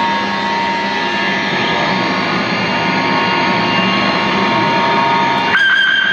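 Live noise-drone music from electronics and effects: a dense, steady roar with several held tones. A little over five seconds in it shifts abruptly, and a new high held tone comes in.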